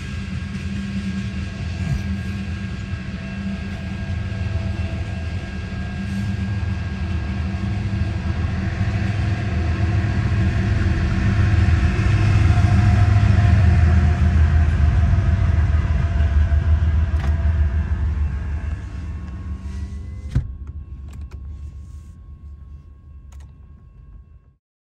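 Freight train of oil tank cars rolling past, heard from inside a car: a steady low rumble of wheels on rail that builds through the middle and then fades away over the last few seconds. One sharp click comes about twenty seconds in.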